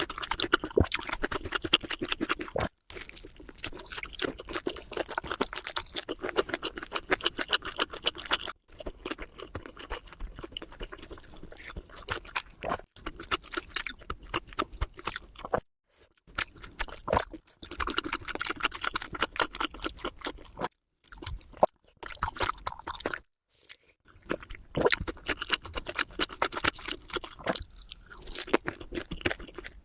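Close-miked eating: chewing and crunching with many quick crisp crackles, broken by a few abrupt silent gaps.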